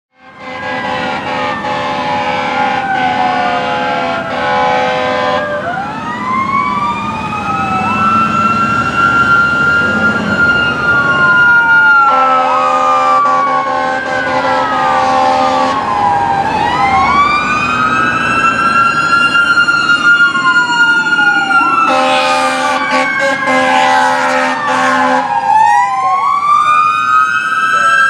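Fire truck's Federal Q mechanical siren screaming as it winds up, holds and coasts back down again and again, with a second siren wailing alongside. Three long, loud air horn blasts, each lasting several seconds, come at the start, about twelve seconds in, and about twenty-two seconds in.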